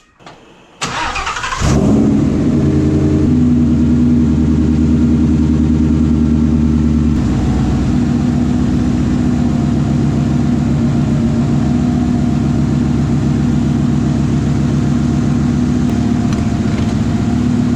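Swapped Ford Coyote V8 in a Mustang cranking about a second in, catching and running at a fast cold-start idle, then dropping to a lower steady idle about seven seconds in.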